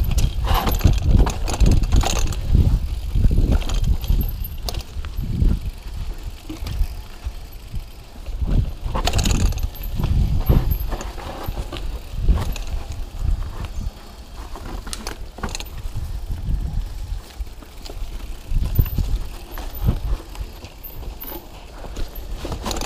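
Mountain bike riding fast down a rough dirt trail: a constant low rumble from the tyres and frame over the bumpy ground, broken by many sharp knocks and rattles as it hits roots and rocks.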